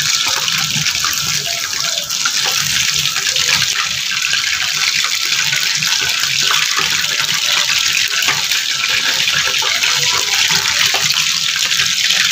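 Chicken 65 pieces deep-frying in hot oil in a steel kadai, sizzling steadily with fine crackles. The pieces are cooked through and are being scooped out with a perforated skimmer.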